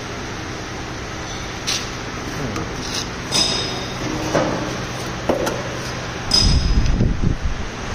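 Steady low hum of a single-chamber vacuum packing machine, with several sharp metallic clinks. Near the end comes a burst of heavy knocking and rattling as a stainless-steel box is handled.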